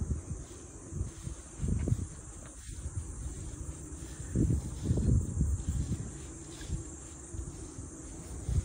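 Steady high-pitched chorus of crickets or similar insects, with a few low bumps and rumbles from the phone being carried along, the loudest about four to five seconds in.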